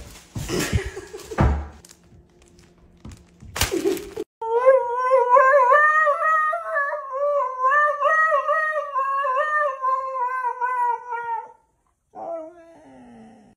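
A few knocks and thumps, then a husky howls: one long wavering howl lasting about seven seconds, then a short falling howl near the end.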